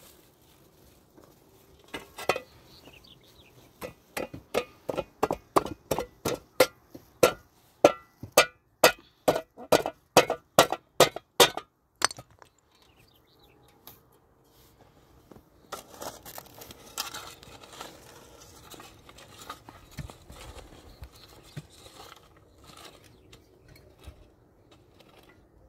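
A steady run of sharp ringing knocks, like metal being struck, about two a second, that stops abruptly. After a short pause comes softer, irregular clattering and rustling.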